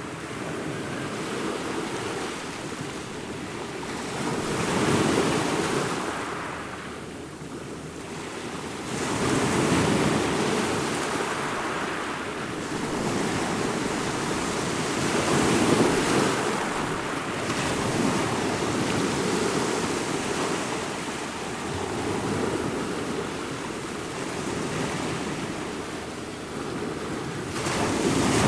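Ocean waves breaking and washing ashore in slow, uneven swells, louder every few seconds as each wave comes in and fading between them.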